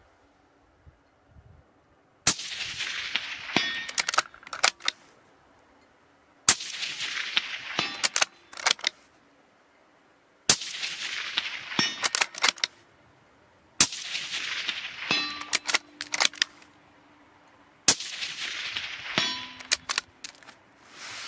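Tikka T3X CTR bolt-action rifle in .223 Remington firing five shots about four seconds apart, each report followed by a long fading echo. After each shot come several sharp metallic clicks and clanks.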